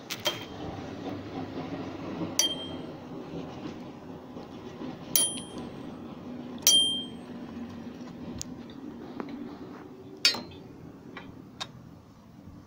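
Socket wrench on a long steel extension working the valve-cover bolts on an engine's cylinder head. It gives sharp metallic clinks every second or two, some ringing briefly, over a faint low hum.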